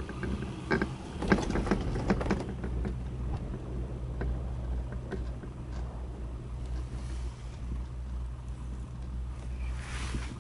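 Chairlift ride: a run of sharp clicks and rattles in the first couple of seconds as the chair passes a lift tower's rollers, then a steady low rumble of the moving lift with wind on the microphone.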